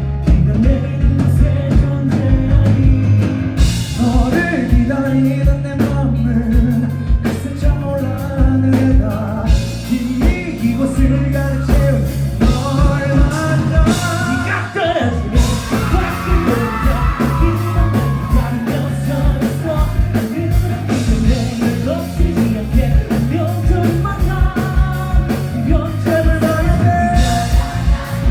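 Live rock band playing a song with a singer, drums, bass and guitars all going at full level.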